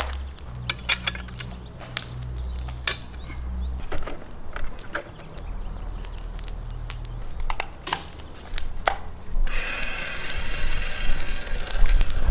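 A steel rotisserie spit rod clinks, knocks and scrapes against its metal stand and motor bracket as it is set in place, with a scatter of sharp clicks. About three-quarters of the way through, a steady hissing noise with a faint hum starts up.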